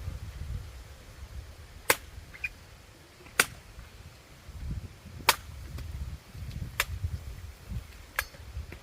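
Five sharp cracks, about one every one and a half seconds, over a low rumble.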